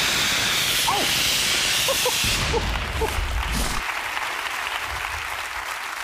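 Stage rocket-launch effect: a loud hiss of a smoke jet that starts suddenly, then slowly dies away, with a low rumble about two to four seconds in.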